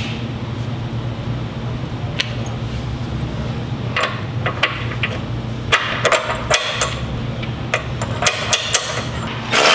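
Irregular metallic clinks and taps of bolts and hand tools against the steel engine mount brackets as the mount bolts go in loosely, over a steady low hum. Just before the end a power tool starts up loudly.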